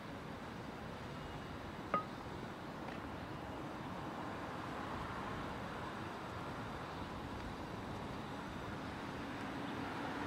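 Steady city background hum with one short, sharp clink about two seconds in.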